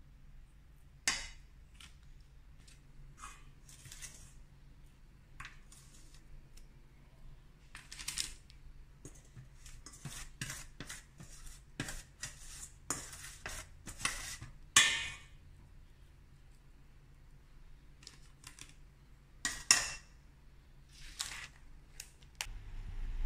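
Irregular light taps and clicks mixed with short papery rustles, from balls of cookie dough being set down on a parchment-lined baking tray. A few of the rustles are louder.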